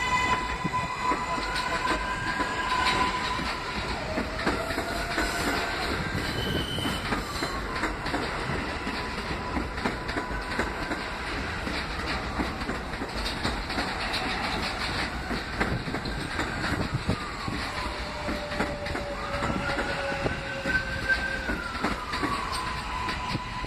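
New York City Subway R143 train pulling out and passing close by. Its motor whine rises and falls again and again over a steady high tone, with wheels clicking over the rail joints.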